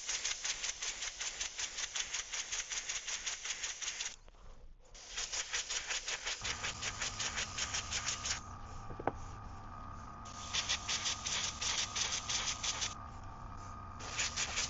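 Airbrush spraying in four bursts of fast-pulsing hiss separated by short pauses. A steady hum joins about halfway through and carries on under the later bursts.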